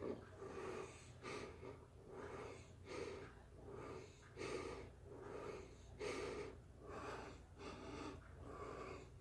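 A man breathing hard and rhythmically while exercising, about two short breaths a second.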